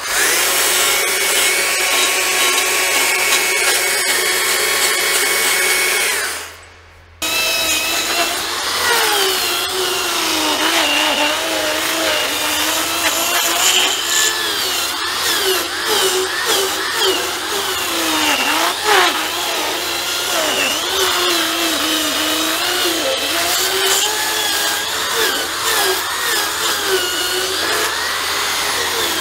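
Handheld rotary carving tool with a milling cutter, spinning at a steady pitch, stopping briefly about six seconds in, then running again and cutting into tamarind wood, its pitch wavering up and down as the cutter bites.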